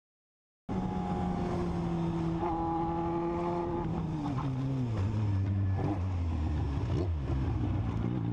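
Motorcycle engine running, heard from the rider's position, starting abruptly under a second in. Its pitch holds steady at first, then drops in steps around the middle as the bike slows, and settles at a lower, steady pitch.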